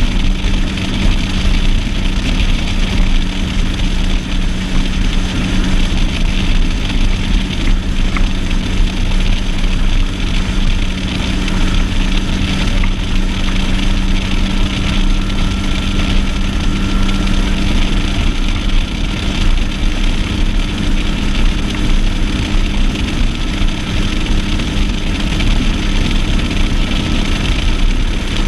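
Outboard motor of a Stratos 201 Evolution bass boat running steadily, a constant low drone under a steady rushing noise.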